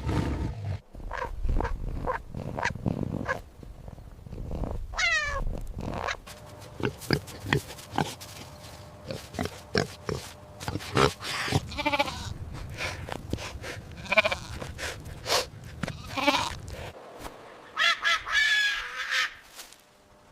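Farm animals calling: a series of separate high, pitched cries, after a few seconds of low noisy sound and knocks.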